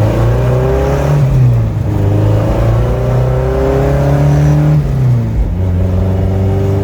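1967 Ford Anglia's swapped-in Ford Kent crossflow four-cylinder engine accelerating through the gears. The engine note climbs, drops at a gear change about a second and a half in, climbs again and drops at a second shift about five seconds in, then runs on steadily.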